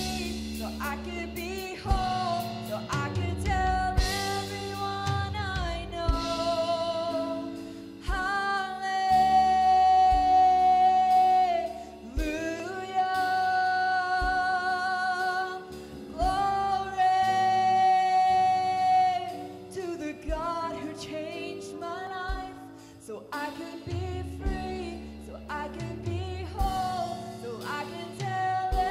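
A woman sings a slow song with a live band of piano, bass guitar and drums. Twice in the middle she holds a long note with vibrato.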